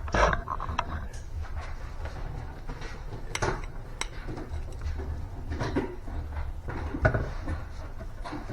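Dishes and metal clinking and knocking as a bowl of mashed potatoes is set on a triple beam balance and weighed: a clunk right at the start, then scattered knocks and clinks, over a low steady hum.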